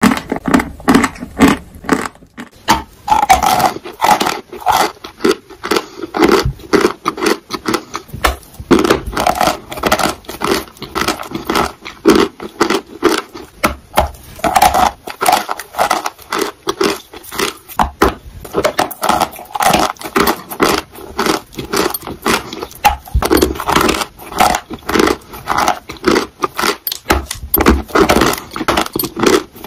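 Chalk crunching close to the microphone as pieces are bitten off and chewed: a fast, irregular run of sharp crunches and crackles.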